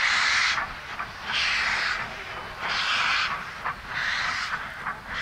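National Railways of Zimbabwe Garratt steam locomotive working at slow speed, its exhaust chuffing in heavy, hissing beats about one every second and a quarter.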